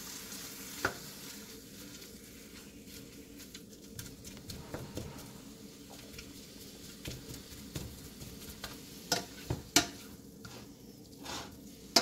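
Ground beef sizzling in a hot stainless steel skillet while a slotted spatula breaks it up, scraping and tapping against the pan. The sharpest taps come about a second in and several times near the end.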